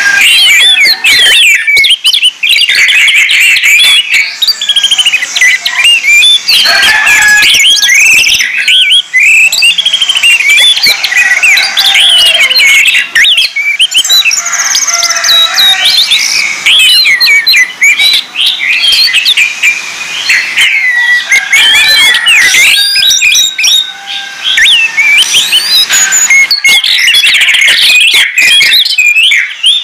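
Orange-headed thrush song: a loud, fast, unbroken stream of varied whistles, trills and quick rising and falling notes.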